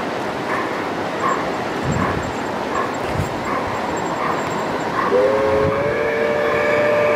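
Model garden-railway train sounding a long two-tone horn blast that starts about five seconds in and holds steady. Before it, a faint short sound repeats about every 0.7 s over the running trains.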